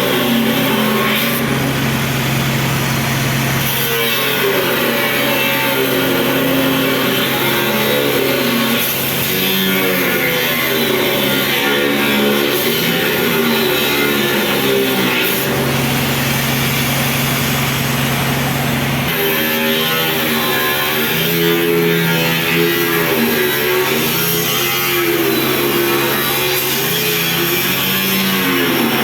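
Background music: a steady low drone under a wavering, plucked-string melody.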